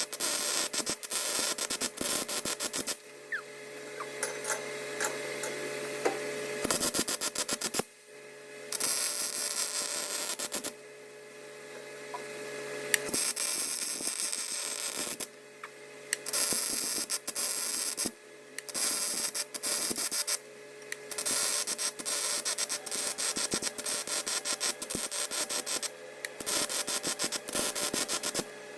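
Welding arc crackling and hissing in runs of a few seconds, stopping and starting again, with a steady machine hum in the pauses: metal being deposited to build up a worn bearing seat on a roller shaft.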